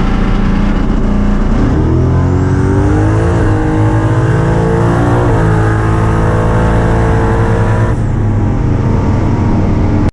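Drag-racing V8 accelerating hard down the strip: engine pitch climbs, drops back twice at the gear changes and climbs again, with a high whine rising over it and holding, then the sound changes abruptly near the end.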